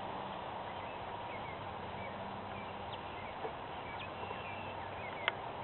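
Steady outdoor background hiss with short bird chirps scattered through it. A faint low hum fades out over the first few seconds, and a single sharp click comes near the end.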